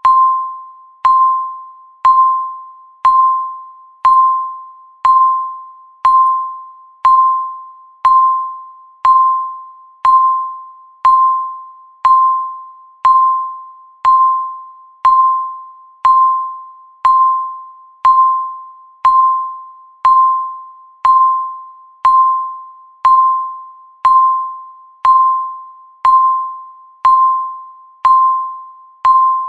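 Countdown timer beeping once a second: a single mid-pitched electronic tone, each beep starting sharply and fading away before the next.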